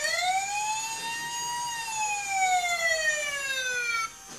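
Battery-powered toy fire truck playing its electronic siren: a wailing tone that rises for about a second and a half, falls slowly, and cuts off suddenly near the end.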